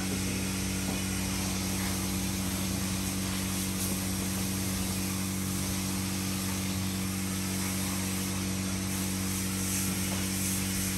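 Steady, unchanging machine hum at one fixed low pitch, like a motor running off to the side.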